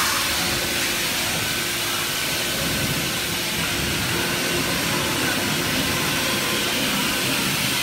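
Melamine lamination hot press line machinery running: a steady hiss over a low machine rumble, with a faint steady whine.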